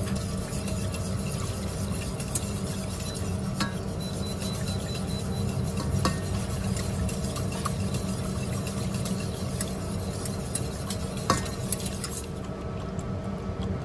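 Wire whisk beating eggs in a stainless steel pot: a steady wet swishing with frequent light clicks of the wires against the metal, and one sharper clink near the end. A steady low hum runs underneath.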